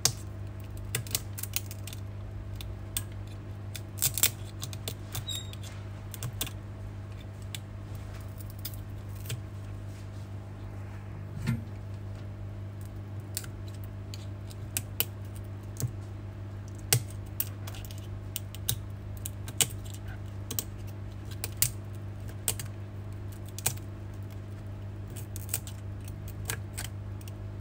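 Shattered iPhone X back glass being picked and chipped away with tweezers: irregular sharp clicks and ticks of glass fragments, over a steady low hum.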